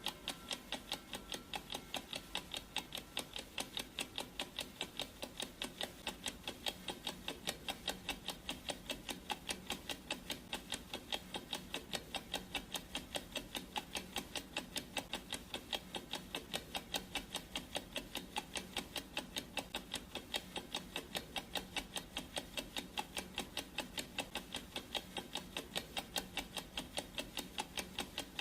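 Clock ticking sound effect: steady, even ticks, a few each second.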